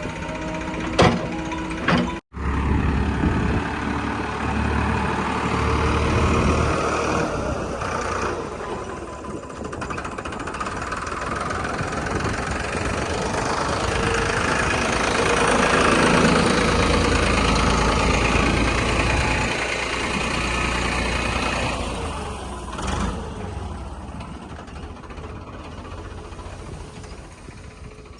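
Diesel engine of heavy earth-moving machinery running under changing load, growing louder toward the middle and easing off near the end.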